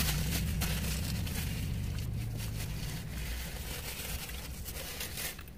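Takeout food packaging crinkling and rustling in quick irregular crackles, over a low rumble that fades about three seconds in.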